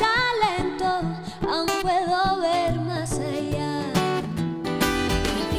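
A woman singing long, held notes into a microphone, with a steel-string acoustic guitar picked alongside her.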